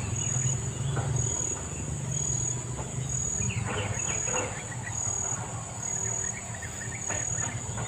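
An insect calling in short high-pitched pulses about once a second, over the low steady rush of a fast river. A few faint scratchy rustles come a little past the middle.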